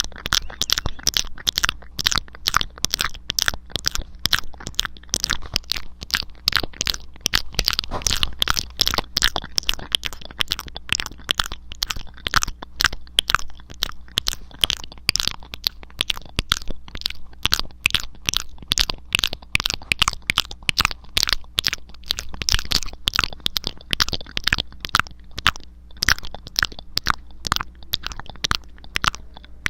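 Fast, aggressive close-miked ASMR hand and mouth sounds: a dense stream of sharp wet clicks and crackles, several a second, without a break.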